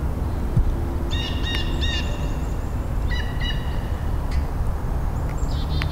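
Wild turkey gobbler gobbling in the woods: one call about a second in and a shorter one about three seconds in, over a steady low rumble.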